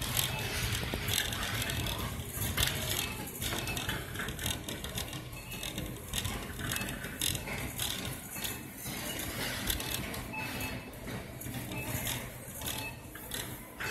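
Wire shopping cart rattling as it rolls along the store floor, an uneven run of clicks and clatter over a steady low hum.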